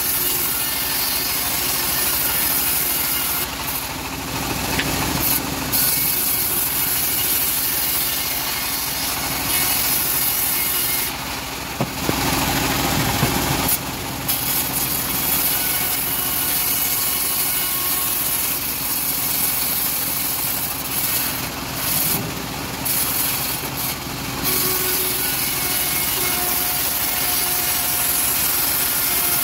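Homemade bandsaw mill ripping a teak plank lengthwise: the blade cutting steadily through the wood over the hum of the mill's drive, with brief changes in the cut about twelve and twenty-two seconds in.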